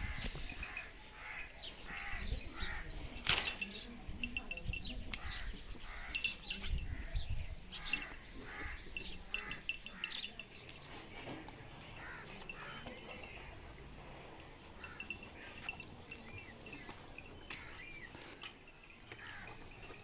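Small birds chirping: many short, high calls in quick clusters, busier in the first half and sparser later.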